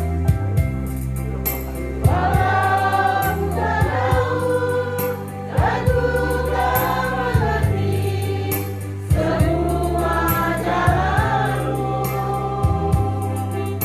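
A congregation singing a worship song together over instrumental accompaniment with a bass line and a steady beat. The voices come in about two seconds in and hold long notes.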